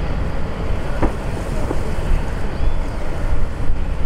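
ATR 72-500 turboprop climbing away after takeoff: its twin Pratt & Whitney PW127 engines and propellers make a steady low noise, mixed with wind buffeting the microphone.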